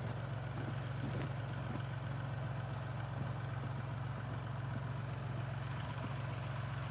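Kubota L3901 compact tractor's three-cylinder diesel engine idling steadily.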